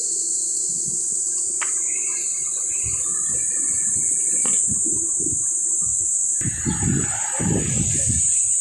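Riding noise from a bicycle-mounted camera: wind buffeting the microphone in low gusts, heaviest in the second half, over a steady high hiss. Two light clicks, about three seconds apart.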